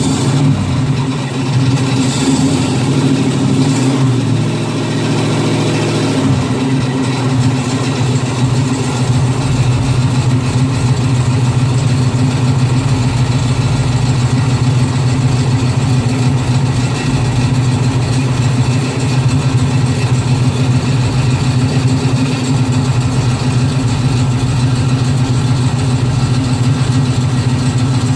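Car engine running steadily at idle, a low even hum with a noise the owner finds strange. An extra higher tone over the hum stops about six seconds in.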